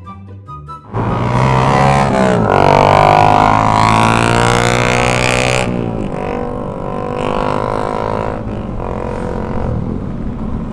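A few short rising chime notes, then a sportbike's engine comes in loud about a second in, accelerating hard with a dip in pitch at each gearshift, followed by motorcycle engines and wind noise while riding along.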